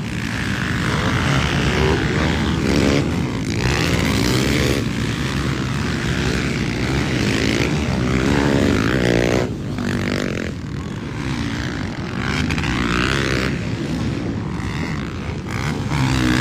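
Several motocross bikes' engines revving hard at once, their pitch rising and falling over and over as the riders work the throttle through the jumps.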